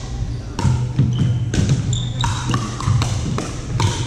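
Pickleball rally: paddles striking a plastic pickleball in a series of sharp pops, about one or two a second, with brief high squeaks of sneakers on the hardwood court floor.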